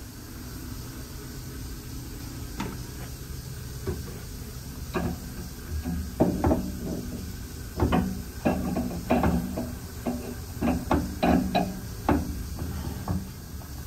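Metal clunks and clinks as a rebuilt high-pressure pump for a spray foam proportioner is handled and seated back into the machine's pump frame: a few scattered knocks at first, then a busy run of short ringing knocks over a steady low hum.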